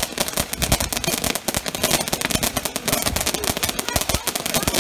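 Consumer firework going off on a stepladder, spraying sparks and popping small stars, with a rapid, continuous crackle of many small cracks.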